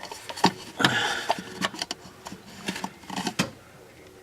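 A string of irregular small clicks and knocks as a plastic distributor rotor is worked by hand on its shaft, with a brief rustle about a second in; the rotor stays stuck on the shaft.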